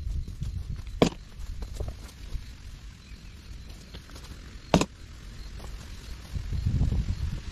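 Two sharp knocks almost four seconds apart over a low rumble, then footsteps crunching through dry leaf litter near the end.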